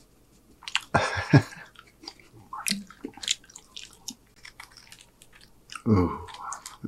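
Close-miked chewing of loaded tortilla-chip nachos: crunches and wet mouth sounds, loudest in a cluster about a second in, then sparser crunches and smacks, picking up again near the end.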